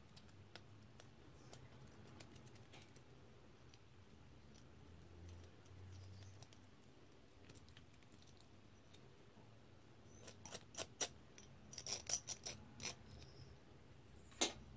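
Small metal clicks and scrapes of a pick working at the retaining pin and screw of a small cast-iron bench vise, with a quick run of sharper metallic clicks in the last third and one loud metallic click near the end.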